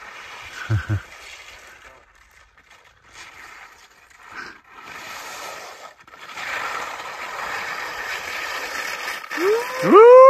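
Skis scraping and hissing over snow, growing louder as a skier comes down the slope toward the listener. Near the end, a loud whoop rises and falls in pitch.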